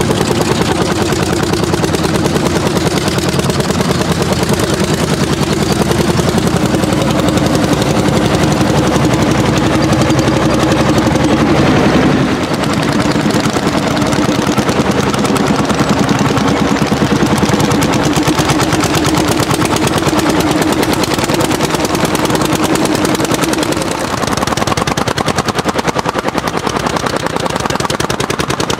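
Orsi Argo hot-bulb tractor's single-cylinder two-stroke engine running hard at full throttle, its exhaust firing a loud, rapid, evenly spaced stream of sharp beats.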